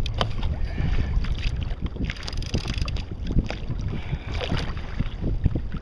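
Wind buffeting the microphone in a steady low rumble, with choppy waves slapping and splashing irregularly against a kayak's hull.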